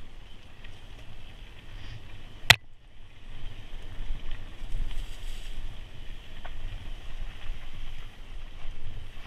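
Wind buffeting the microphone with rustling trail noise as the camera moves fast along a dirt singletrack. One sharp clack about two and a half seconds in.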